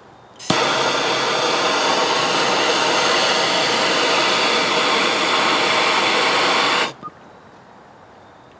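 Power tool running in one steady burst that stops abruptly about seven seconds in, turning out a broken exhaust manifold stud that has a bolt welded onto it.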